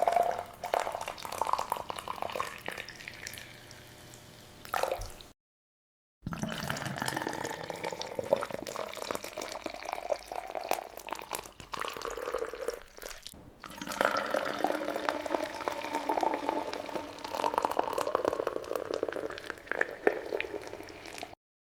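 Liquid splashing and dripping, with many small clicks and taps; it cuts out for about a second near the start, then resumes and stops abruptly near the end.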